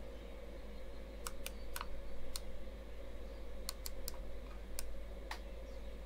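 Plastic detent clicks of a Chinese diesel heater's rotary controller knob being turned up, about nine clicks spaced unevenly, over the steady hum of the heater's fan running.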